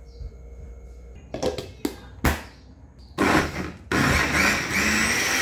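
Countertop blender blending milk, banana pieces and blueberries into a smoothie. After a few knocks, the motor runs in a short burst, stops for a moment, then runs again steadily.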